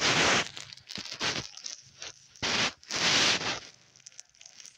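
Rustling noise in four short bursts, two of them close together near the middle.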